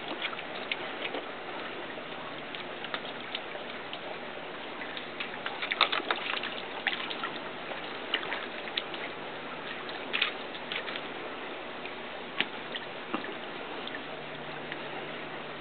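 Water splashing and slopping in a plastic kiddie pool as a corgi pokes and laps at it with his muzzle: irregular small splashes, busiest about six seconds in.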